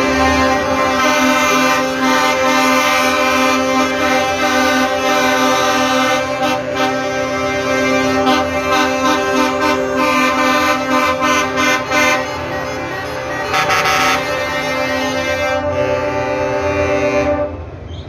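Truck air horns sounding a long, loud chord of several notes together, the notes shifting a few times, then cutting off about a second before the end.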